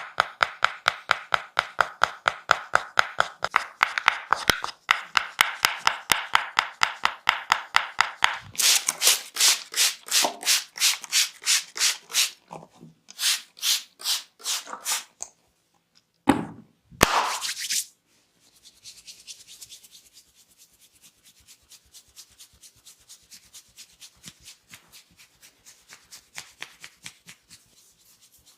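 Hands working a head and scalp in a barber's massage: fast, even, rhythmic strokes for the first eight seconds or so, then slower, sharper strokes and a couple of brief swishes around the middle. Softer rhythmic rubbing on the scalp fills the second half.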